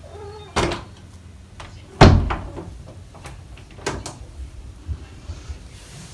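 A few sharp knocks and thumps. The loudest is a deep thud about two seconds in, and lighter knocks come near four seconds. A brief cat meow sounds at the very start.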